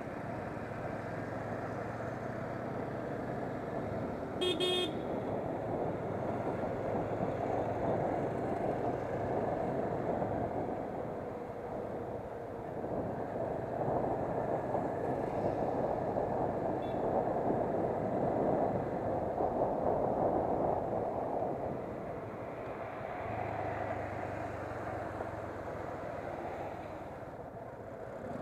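Motorcycle riding at low city speed, its engine a steady low hum under wind rushing over the microphone, with a short vehicle horn beep about four and a half seconds in.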